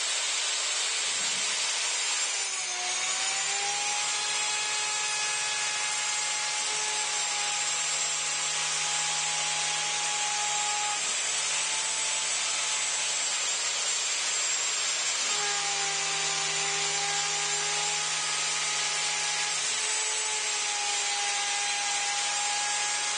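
CNC router spindle running at speed while its bit cuts a pass through cedar fence board: a steady high whine over a rushing cutting noise. The pitch dips briefly about two and a half seconds in, and a lower hum underneath breaks off and resumes several times.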